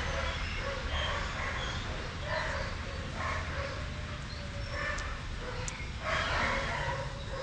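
A young Labrador/Border Collie mix dog gives repeated short barks and yips, excited in play.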